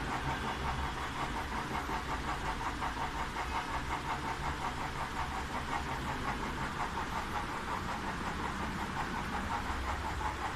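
A machine, engine-like, running steadily with a rapid, even pulse.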